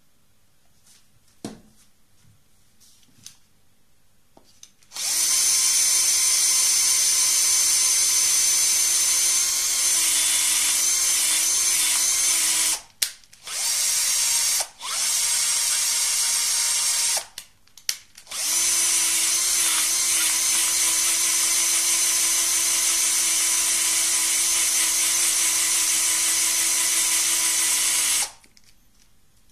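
Handheld power drill spinning a foam polishing pad over three carom billiard balls in a felt-lined bucket, a ball-cleaning machine at work. It starts about five seconds in and runs steadily with a high whine. It cuts out briefly three times around the middle and stops near the end.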